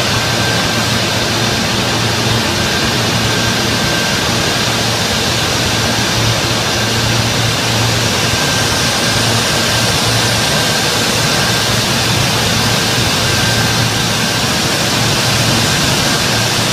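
Yarn-mill spinning, twisting and winding machinery running: a loud, unbroken hiss with a steady low hum and a faint high whine.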